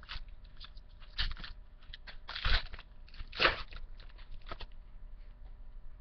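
Crinkling and rustling of trading-card packs and cards being handled, in about five short bursts roughly a second apart, the loudest about halfway through.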